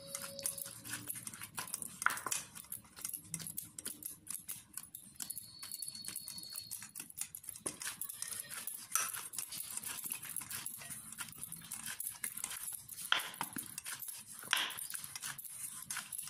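Hands kneading stiff maida dough in a steel bowl: a steady run of small squelches, slaps and knocks, with a couple of louder knocks near the end.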